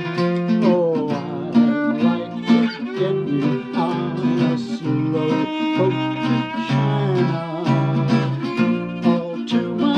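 Violin and acoustic guitar playing swing together: the guitar strums a steady chordal rhythm while the violin carries the melody with sliding notes.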